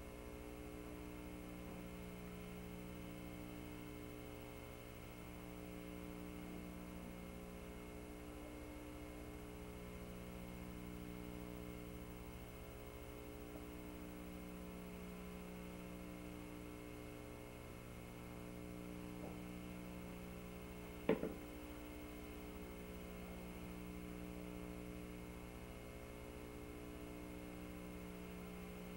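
Faint, steady electrical mains hum, with one short click about three quarters of the way through.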